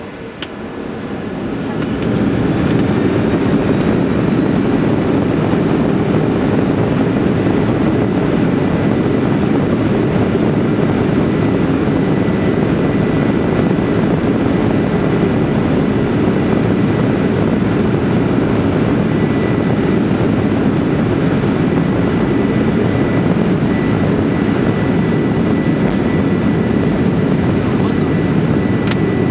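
Inside the cabin of a Boeing 737-800 over the wing during the takeoff roll. The CFM56-7B turbofans spool up to takeoff thrust over the first two seconds, then the engines and runway rumble keep up a steady, loud, deep rush, with a faint high steady whine above it.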